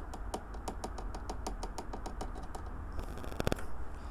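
Model railway ballast sprinkled from a teaspoon onto the track, making a run of light, even ticks, about seven a second. About three seconds in comes a short, louder rattle.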